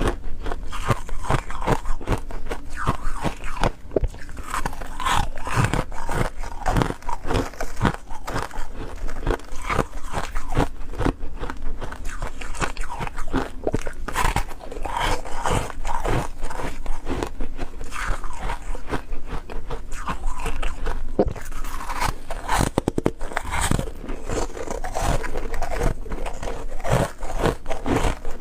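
Close-miked crunching of freezer ice being bitten and chewed, one dense crackling crunch after another.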